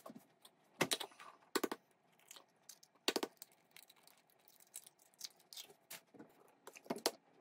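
Eggs being cracked by hand: a handful of short, sharp taps and crunches of eggshell breaking over a plastic measuring cup, the loudest in the first three seconds, with fainter clicks of handling later.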